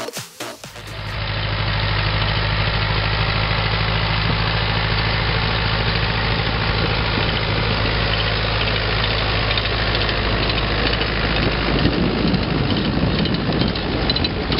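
After a brief tail of dance music, a tractor engine comes in about a second in and runs steadily while pulling a working manure spreader.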